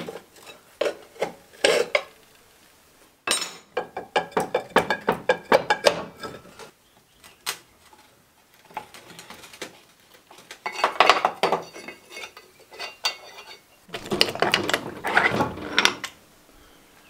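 Steel parts of a Land Rover Series 1 front axle hub clattering and scraping as it is stripped by hand: brake shoes worked off the backplate and the half shaft drawn out of the swivel housing. The clattering comes in several spells with short quiet gaps, and some parts ring briefly.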